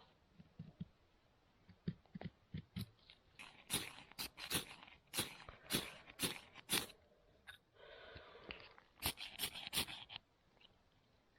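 Bushcraft knife shaving curls off a stick of wood to make a feather stick: a run of short, sharp scraping strokes, roughly one or two a second, with one longer rasping stroke a little before the last few.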